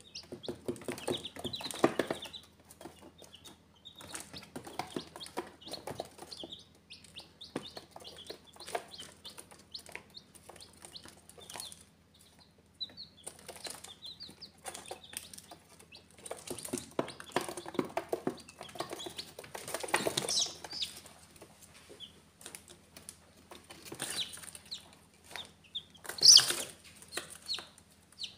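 Newly hatched chicks peeping in short high chirps, over frequent light scratching and tapping of their feet and beaks on cardboard. The loudest, sharpest moment comes near the end.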